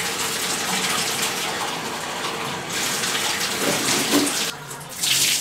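Water running in a bathtub and splashing into a black plastic garbage can as the can is rinsed out. The rush eases for a moment shortly before the end, then surges again.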